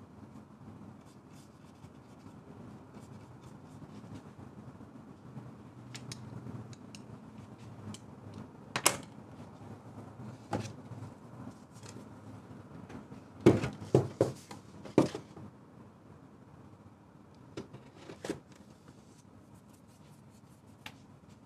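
Quiet room tone broken by scattered sharp knocks and clicks as a painting panel is handled and moved on a wooden easel, with a quick cluster of four knocks about two-thirds of the way through.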